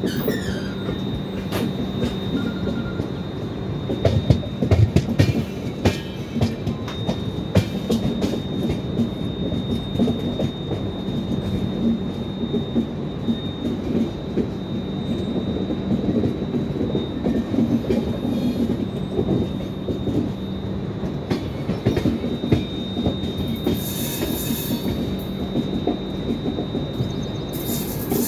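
Indian Railways passenger coaches running over the track, heard at an open door: a continuous rumble of wheels on rails with a steady high-pitched wheel squeal and a low hum through most of it. Sharp clacks of the wheels over rail joints come in a cluster about four to six seconds in.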